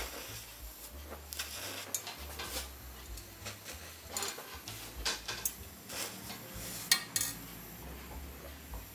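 Light, irregular metallic clinks and taps on brass lamp parts during torch soldering, one sharper clink about seven seconds in.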